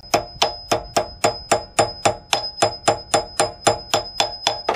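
Hammer striking a new steel lug bolt to drive its toothed shank into a trailer wheel hub: rapid, even blows, about four a second, each with a sharp metallic clink and a high ringing note that carries between strikes.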